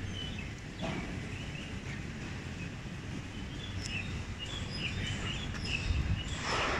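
Small birds chirping on and off over a steady low background rumble, with a brief louder rush of noise near the end.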